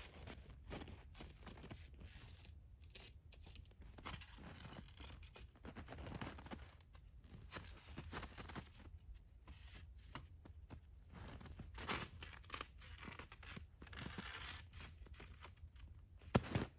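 Irregular crunching, scraping and rustling from close-up handiwork, with a sharp knock near the end.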